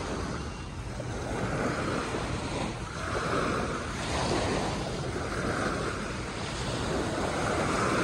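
Small waves breaking and washing up a beach, swelling and fading every second or two, with wind rumbling on the microphone.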